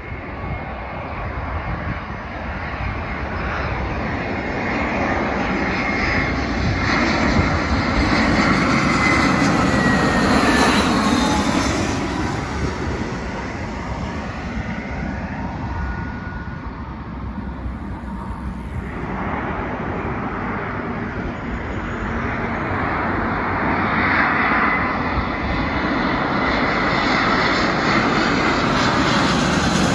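British Airways Airbus A319 jet engines on final approach, passing low overhead. The noise builds to a peak about ten seconds in, with a falling whine as the jet passes, then fades. A second twin-engine airliner's engine noise builds again through the second half.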